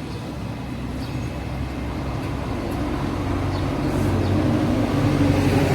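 A steady low mechanical hum that slowly grows louder.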